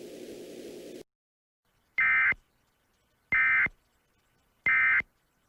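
Emergency Alert System end-of-message (EOM) SAME data signal: three short, identical bursts of digital data tones about a second apart, marking the end of the alert. Before them, a faint steady background hum cuts off about a second in.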